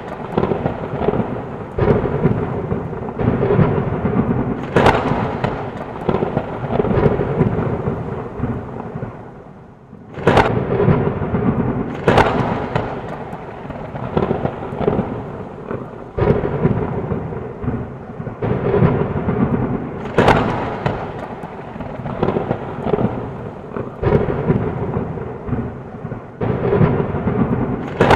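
Thunderstorm: continuous rumbling thunder with sharp cracks every few seconds over falling rain. The rumble eases briefly about ten seconds in, then picks up again with a crack.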